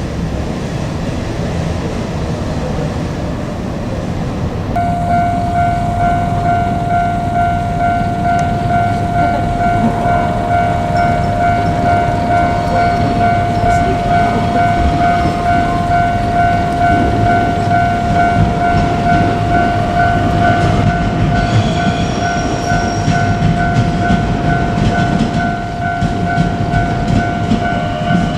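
A Japanese level-crossing warning bell rings about five seconds in as a steady, repeating electronic tone. Under it runs the rumble of a JR Kyushu 817 series electric train on the line.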